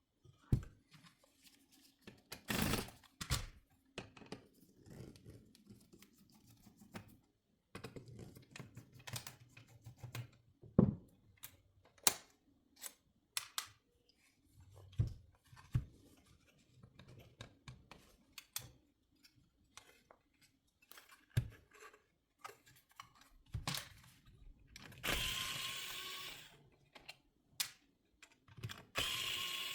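Plastic parts of a car head unit's screen assembly being handled and taken apart: scattered clicks and knocks, with two short rasping, scraping noises near the end.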